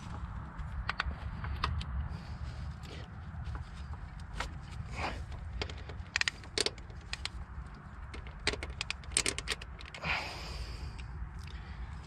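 Irregular clicks, taps and scrapes of hand work, over a steady low hum.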